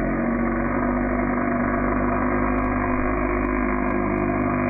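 Small nitro glow engine of an RC buggy running, its pitch climbing slowly as it is throttled up.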